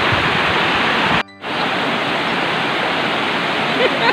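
Waterfall cascading over a broad rock slope, a steady loud rush of water that drops out briefly about a second in.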